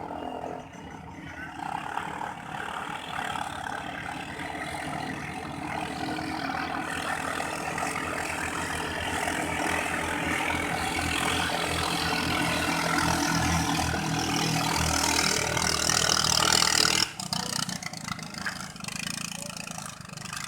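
Katinting longtail boat engine running at speed, growing steadily louder, then dropping off suddenly near the end.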